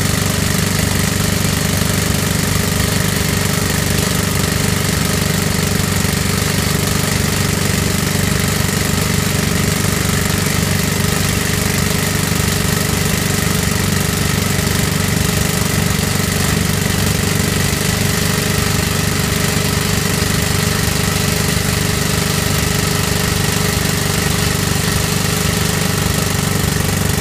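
Excavator-mounted hydraulic rock drill hammering steadily into rock, with the excavator's engine running under it. The hammering stops right at the end.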